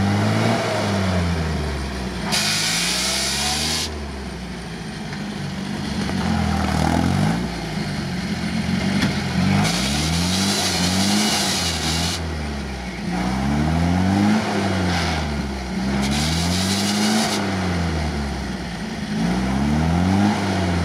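UAZ-469 off-roader's engine revved up and falling back again and again, roughly every two seconds, as it works stuck in icy mud. Three bursts of hiss come through over the engine, a couple of seconds each.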